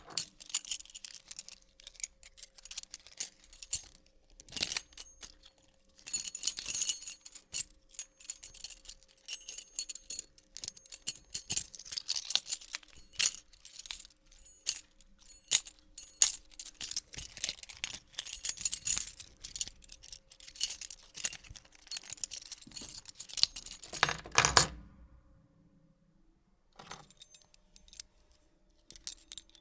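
A bunch of metal keys jingling and rattling as they are shaken and handled, in irregular bright jangles. A little before the end comes a louder clatter with a low thump. After a short pause, fainter jingling starts again.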